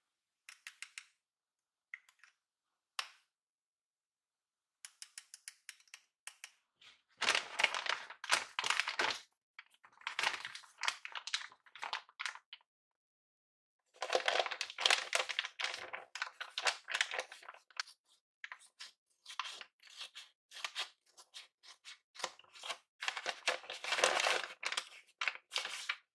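Paper packaging crinkling and rustling as it is handled and opened, in several stretches of a few seconds each. A few small clicks come in the first three seconds.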